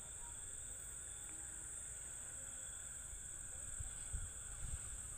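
Steady high-pitched insect trill that holds one even pitch, with a few soft low thumps near the end.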